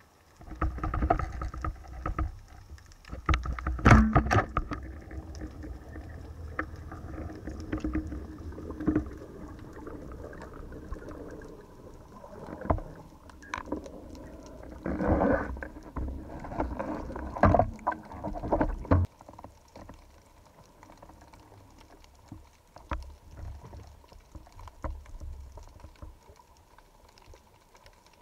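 Underwater sound picked up by a camera mounted on an oleopneumatic speargun: low rumbling water noise with muffled knocks and scuffs, and a sharp crack about four seconds in as the speargun fires. Bursts of knocking and rustling follow around the middle as the speared little tunny is fought on the line, then it grows quieter.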